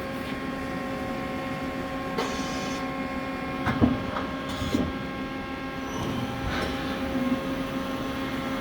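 1989 Mori Seiki SL-15MC CNC turning center running its program just after cycle start: a steady machine hum made of several constant tones, with a few short clicks and knocks about four, five and six and a half seconds in.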